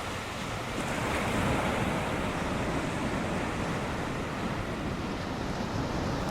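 Ocean surf from a typhoon swell, a steady rushing wash of breaking waves, with some wind noise on the microphone.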